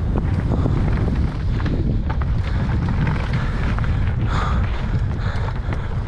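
Wind buffeting the microphone on a fast mountain bike descent: a steady loud rumble with scattered clicks and knocks from the bike over rough ground, and a brief burst of louder crackling hiss about four seconds in.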